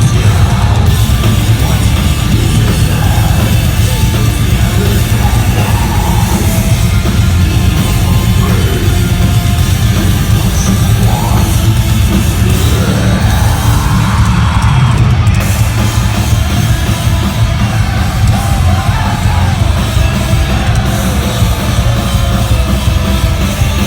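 Metalcore band playing live, heard loud and distorted through a crowd recording: heavy guitars, pounding drums and bass with shouted vocals.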